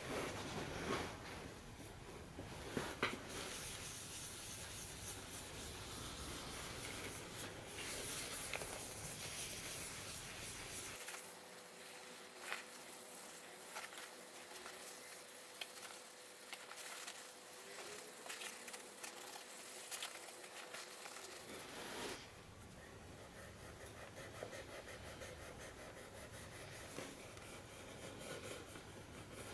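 A damp cloth rubbing and wiping over the leather shell of a WW1 pickelhaube, soft scratchy strokes with small handling clicks, a couple of sharper ones about three seconds in.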